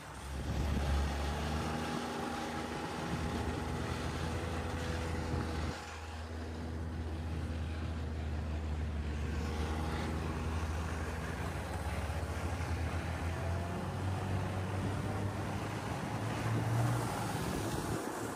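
Ski-Doo Expedition snowmobile's three-cylinder four-stroke 900 ACE engine running at cruising speed under the rider. It eases off briefly about six seconds in and revs higher near the end.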